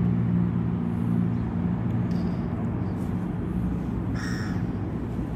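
A steady low engine hum, as from road traffic, over outdoor background noise. The hum fades about halfway through.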